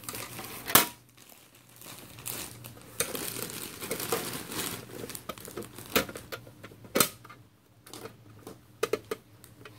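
Crinkling and rustling of a bag of paper bedding being handled and opened, with a few sharp knocks about a second in and again around six and seven seconds in.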